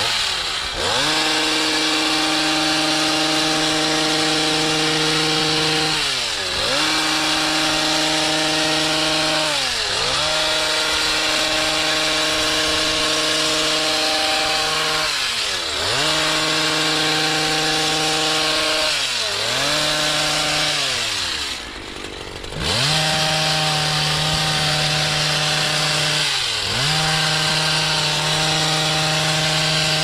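Stihl HS56C two-stroke gas hedge trimmer running at high throttle while its blades shear through a shrub. The engine note drops and climbs back about six times as the throttle is eased and reopened, once sinking nearly to idle about three-quarters of the way through.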